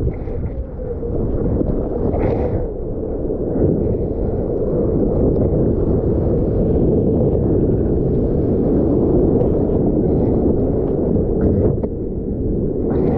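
Breaking shorebreak waves and churning whitewash, heard from a GoPro held at the water surface: a steady, dull rush of surf with a few brief splashes.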